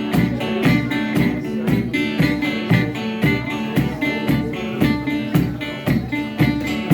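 Instrumental blues-country music led by a dobro (resonator guitar), plucked notes over a steady beat.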